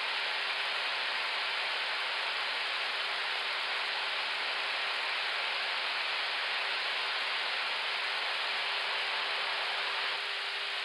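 Steady rushing hiss of air streaming past an Airbus A321neo's flight deck in high-speed flight, with a steady hum underneath.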